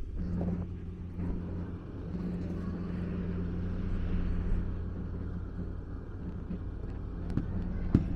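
An engine running steadily with a low hum, among street noise, with a couple of sharp knocks near the end.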